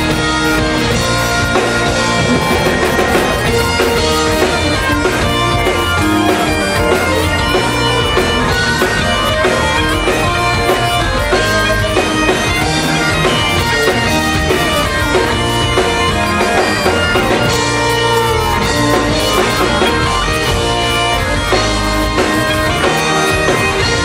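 Live Celtic rock: Great Highland bagpipes playing a melody over their steady drone, backed by electric guitar, bass and a drum kit.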